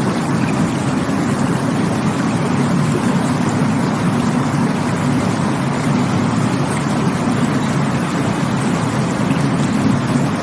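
Stream water rushing steadily: an unbroken, deep rushing noise that never lets up.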